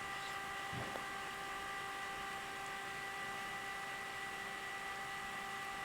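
A steady electrical hum with several faint, constant high tones over room tone, and a faint brief soft sound just under a second in.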